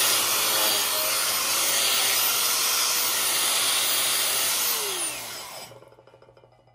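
DeWalt angle grinder with a wire wheel running at full speed, wire-brushing slag off a 7018 stick weld pass on a steel plate. About five seconds in it is switched off and winds down with a falling whine.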